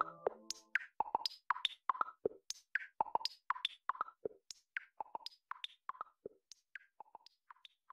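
Closing bars of an electronic music track. A held synth chord dies away just after the start, leaving a sparse, even pattern of short clicky percussion hits, about four a second, that grows fainter and stops at the very end.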